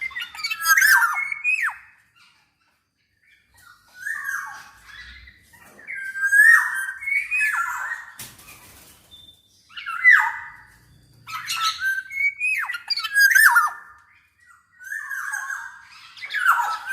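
Black-naped oriole (kepodang emas) singing in repeated bouts: quick, fluty whistled phrases sweeping up and down, mixed with harsh squawky notes, about five bouts with short pauses between.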